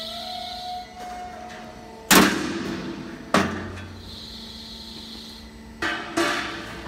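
Punch press station of a C purlin roll forming machine striking through the steel strip four times, each a sharp metallic bang with a brief ring: the first two about a second apart, the last two in quick succession near the end. A steady machine hum runs underneath.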